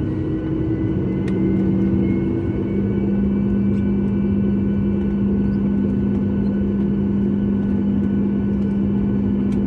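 Steady low drone inside the cabin of a Boeing 737 MAX 8 during pushback and engine start, with a faint whine that rises slowly in pitch over the first few seconds, then holds steady. There is a faint click about a second in.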